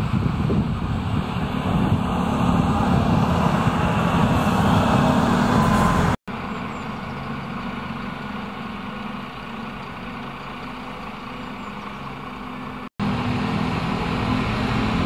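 Stadler Regio-Shuttle diesel railcars running in slowly, their underfloor diesel engines droning low with steady rail noise. The sound breaks off abruptly twice, about six and thirteen seconds in, and is quieter in the middle stretch.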